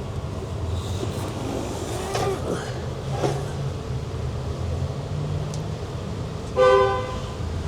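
A short vehicle horn toot about six and a half seconds in, the loudest sound, over a steady low rumble with some scattered clatter.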